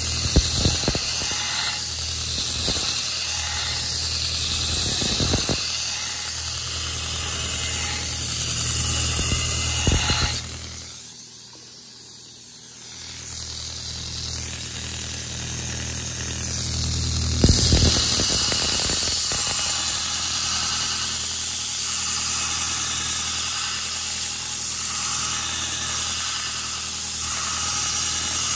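Belt grinder running, with the steel blade of an old putty knife pressed to the moving belt: a steady grinding hiss and squeal over the motor's hum, with a few jolts as the blade meets the belt. The sound falls away for a couple of seconds near the middle, then builds back up.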